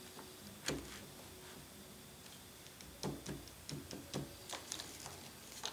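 Faint, irregular clicks and light taps from an unplugged Festool plunge router and its edge guide being nudged by hand to line the V-point bit up with a scribe line: one click near the start, then a quick run of about a dozen in the second half.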